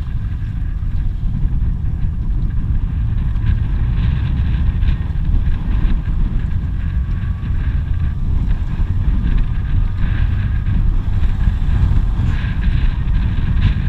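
Steady wind buffeting the microphone, a heavy, uneven low rumble.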